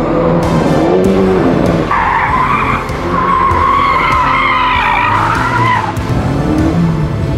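Alpine A110's turbocharged four-cylinder engine running hard on track, with a loud wavering tyre squeal from about two seconds in lasting some four seconds as the car slides through a tight corner.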